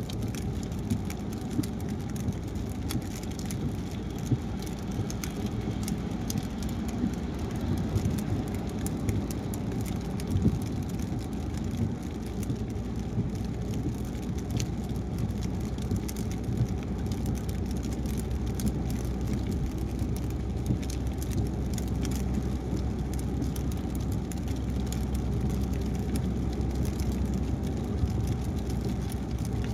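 A car driving on a wet highway in rain: a steady low rumble of tyres and engine, with many small raindrop ticks throughout. A deeper hum grows stronger about halfway through.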